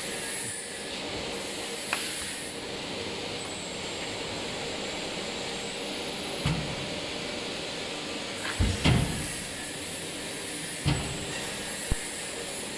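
Hydraulic die cutting press for EVA foam puzzle mats running a cutting cycle: a steady hum from the machine with several clunks and thumps as the shuttle table slides in and out and the press closes, the loudest a double thump about nine seconds in.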